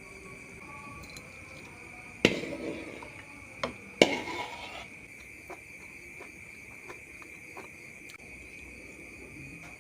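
A steady, high, insect-like trill, like a cricket, runs throughout. Two loud, sharp knocks come about two and four seconds in, with a smaller knock between them and faint ticks after. Sounds like these are taken for the eerie noise in the kitchen.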